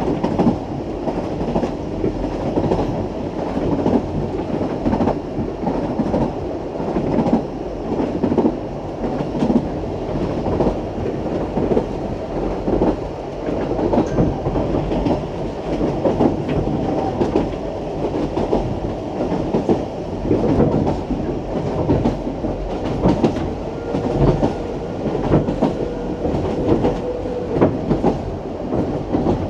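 Isle of Man Steam Railway train running along the line: a steady rumble of the coaches with the wheels clicking over rail joints throughout.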